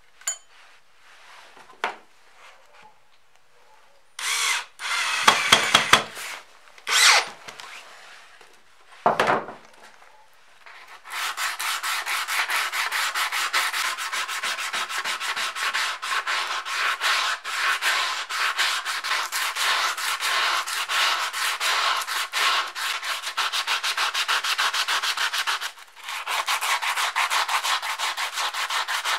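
Sandpaper rubbed by hand on a steel axe head: fast back-and-forth scraping strokes that start about a third of the way in and keep on steadily, with a short break near the end. Before that there are a couple of small clicks and some louder, brief handling noises.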